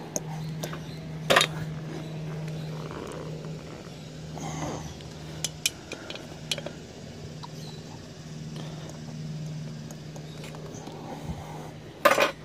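Side cutters snipping through copper refrigerant tubing where it leaves a refrigerator compressor: a sharp snap about a second in and another double snap near the end, with lighter clicks of the tool between, over a steady low hum.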